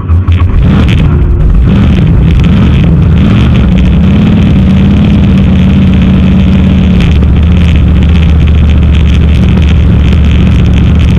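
A drag car's 400 cubic inch Chevrolet V8 heard from inside the cockpit, revved up sharply and held at high revs, so loud it overloads the recording. The pitch shifts about seven seconds in.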